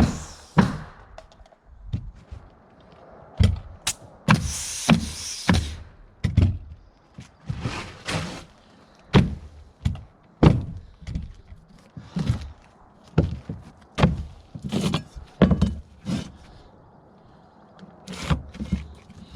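Pneumatic roofing nailer, powered by an air compressor, firing nails through asphalt shingles: a long run of sharp shots at irregular spacing, roughly one a second, with a longer hissing stretch near the start.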